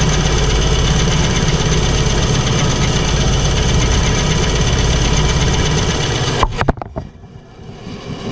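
Electric benchtop band saw's motor running steadily with a constant hum and whine, then cutting out sharply about six and a half seconds in with a few clicks, and starting to come back near the end.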